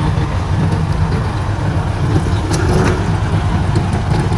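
Diesel engine of heavy road-construction machinery running steadily with a low drone, with a few faint ticks about two and a half seconds in.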